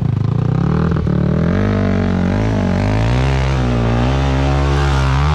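ATV quad bike engine revving, its pitch rising and falling again and again under hard throttle.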